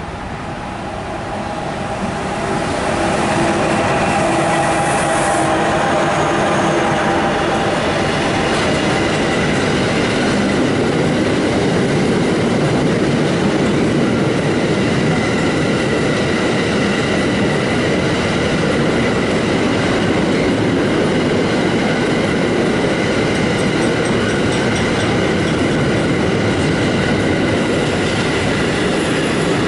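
A train passing close by on the rails: wheel-and-rail noise that builds over the first three seconds, then holds steady and loud, with thin high tones ringing above it.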